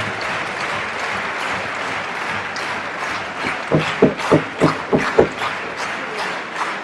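Concert-hall audience applauding steadily, with about six loud single hand claps close to the microphone a little past the middle.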